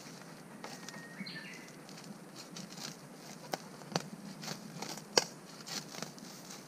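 Golden retriever digging with paws and snout in soil and dry bamboo leaf litter: irregular scrapes, rustles and crackles, with a louder click a little after five seconds in.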